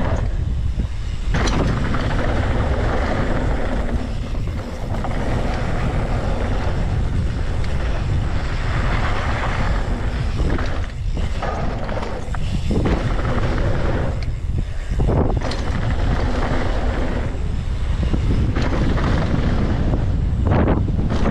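Wind buffeting the microphone on a fast mountain bike descent, over the hiss and crunch of knobby tyres rolling on dry dirt and loose gravel. A few sharp knocks from the bike are heard over the bumps.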